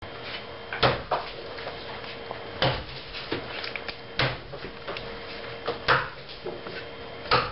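Axe chopping into wood: five sharp, evenly paced strikes, about one every second and a half, with lighter knocks between them.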